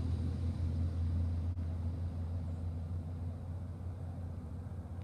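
Car running with a steady low drone.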